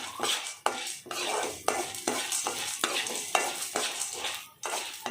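A spoon scraping and stirring chana dal as it roasts in ghee in a pan, in repeated strokes about two to three a second, with a light sizzle underneath.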